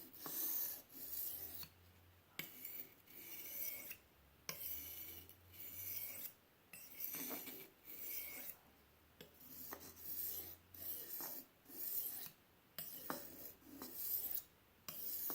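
Steel blade of a Spyderco Tenacious pocket knife drawn stroke after stroke across a fine sharpening stone wet with honing solution: a run of short, hissing scrapes, roughly one or two a second, with brief pauses between sets.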